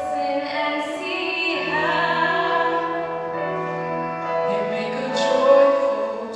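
A choir singing held chords, with solo voices sung into microphones over it; the sound swells about five seconds in.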